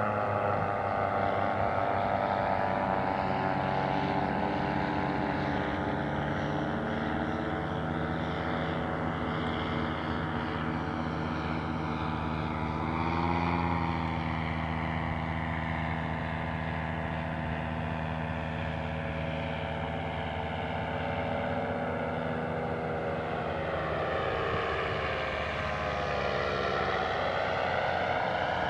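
Paramotor engine and propeller droning in flight, its pitch sliding down, bending briefly about halfway through, and rising again near the end as it passes back and forth.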